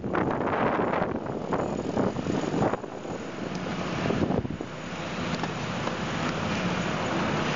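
Wind rushing over the microphone on a moving bicycle. It flutters unevenly for the first few seconds, then settles into a steadier rush from about halfway.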